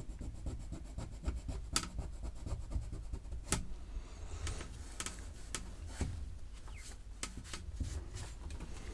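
Cloth with a little dry baking powder being rubbed on a Commodore Plus/4's plastic case to scrub off marks: an uneven scratchy rubbing with scattered small clicks and knocks.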